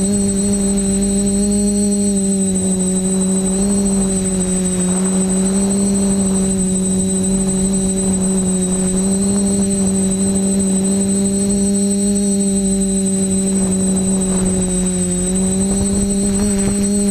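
TBS Discovery quadcopter's motors and propellers humming steadily while it hovers, heard from its onboard camera, with a thin high whine above the hum. The pitch dips briefly near the end.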